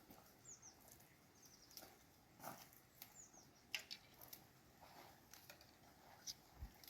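Faint, high chirps of a small bird: a few quick falling notes in short groups, among scattered light clicks and rustles.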